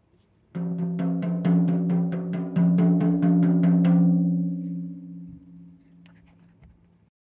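Rack toms struck with a wooden drumstick in a quick, even run of about four to five hits a second, then left to ring out, the low drum tones fading away over a few seconds. These are tom heads being sounded out just after a head change.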